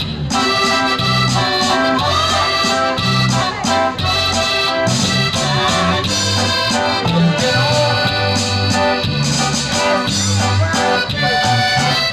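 Latin American dance music led by accordion, with sustained chords over a recurring bass line.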